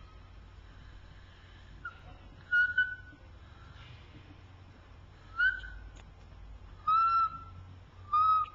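A series of short, high-pitched squeaks, about five, each a clear single tone with overtones. The first three are brief, and the last two, near the end, are held a little longer at a steady pitch.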